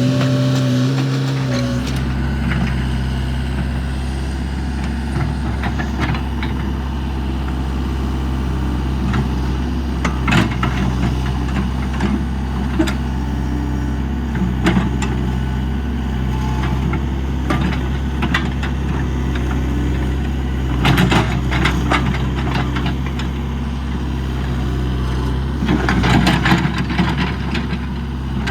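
Komatsu excavator's diesel engine running steadily, a deeper low hum setting in about a second in, with scattered clanks and rattles, several close together near the end.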